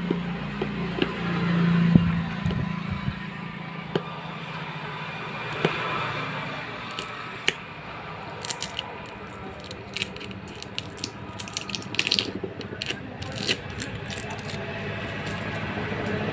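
Cardboard phone box being handled and its seal picked at with the fingers: rustling scrapes, then a run of small clicks and crackles in the second half.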